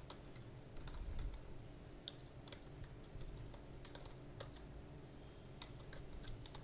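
Faint typing on a computer keyboard: scattered, irregular key clicks over a low steady hum.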